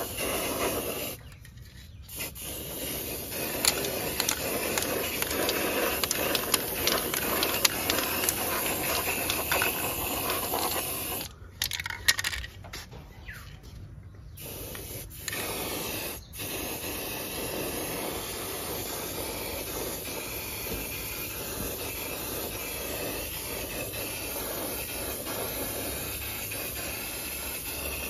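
Aerosol spray paint can hissing in long bursts as red paint is sprayed onto a tractor's metal footstep. It stops briefly about a second in and again for a few seconds near the middle.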